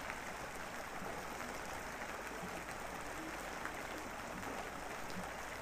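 Steady rain from a rain recording, an even hiss with faint scattered drop ticks.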